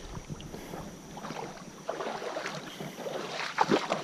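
Creek water sloshing and splashing in irregular bursts, with a louder splash around three and a half seconds in.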